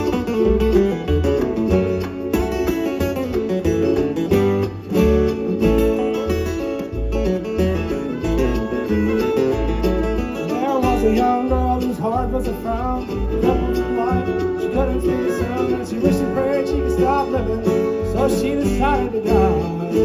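Live bluegrass band playing an instrumental passage, with acoustic guitar, banjo, fiddle and upright bass.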